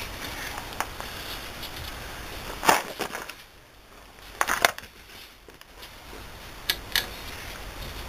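Sharp metallic clicks and knocks, a few at a time with pauses between, from hands working the brake caliper and its slide bolts on a truck's front brake.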